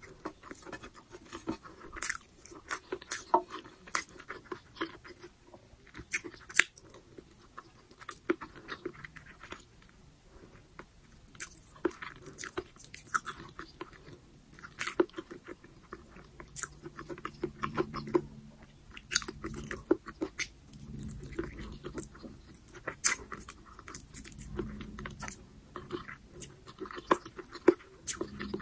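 Close-miked chewing of braised pork humba and rice: wet, irregular mouth sounds with many sharp clicks and smacks.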